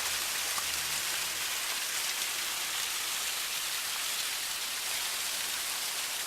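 Water spilling steadily down a man-made boulder waterfall: an even, bright splashing hiss with no breaks.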